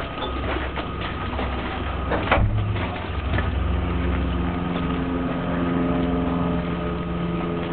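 A steady engine hum with a low drone, and a short knock a little over two seconds in.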